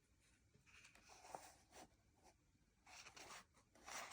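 Faint rustling and swishing of paper as pages of a colouring magazine are turned, in a few short strokes.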